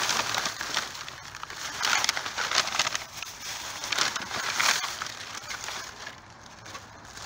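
Plastic bags, cardboard and paper rustling and crinkling as a hand rummages through trash in a dumpster, in irregular bursts that die down near the end.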